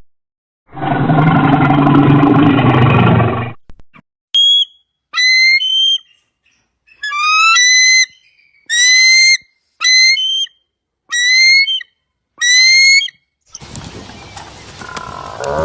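Animal calls: a loud roar lasting about three seconds, then a series of about eight short, high whistled calls about a second apart. Near the end a lower, noisier call begins.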